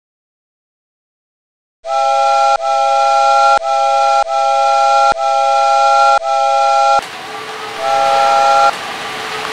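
Silence for almost two seconds, then a chime whistle sounding a chord of several steady tones in a run of blasts of about a second each, broken off abruptly between them. Near the end a steady hiss comes in and the chord sounds once more, briefly.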